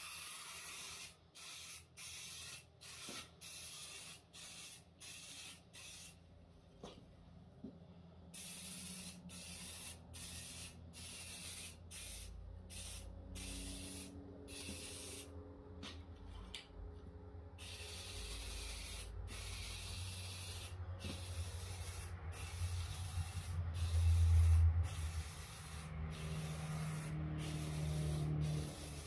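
Aerosol rattle can of primer spraying, hissing in a quick run of short bursts and then in longer, almost unbroken passes. A low rumble swells about two-thirds of the way through.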